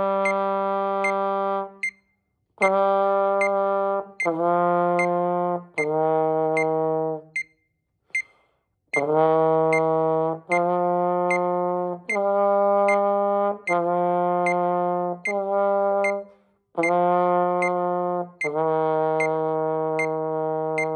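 Trombone playing a slow warm-up line of held half notes, stepping up and then down, with a two-beat rest about eight seconds in. A steady tick, a little under two per second, keeps time behind it.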